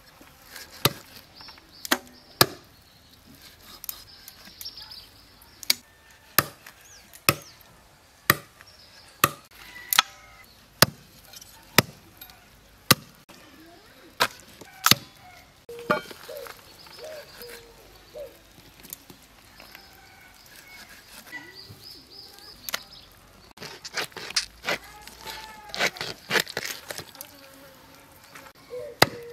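A curved blade chopping duck meat and bone against a wooden log: sharp knocks at an uneven pace, roughly one a second, thinning out in the middle, then a quick run of chops near the end.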